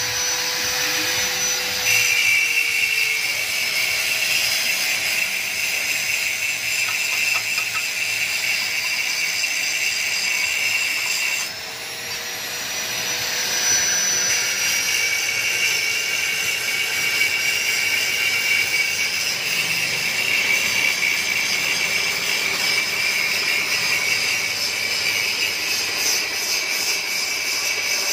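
Electric angle grinder running and grinding metal, a steady high whine whose pitch sags and recovers as it bites. About twelve seconds in it drops off briefly and then winds back up.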